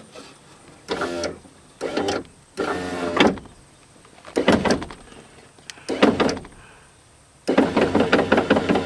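Ford F-150 power window motor and regulator inside the open door, run in several short bursts and then running steadily from about three-quarters of the way in with a rapid, even clicking. The owner takes the clicking for a fault in the motor itself.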